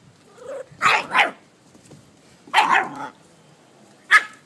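Bull-breed puppy barking: two quick barks about a second in, another a moment later, and one short, sharp bark near the end.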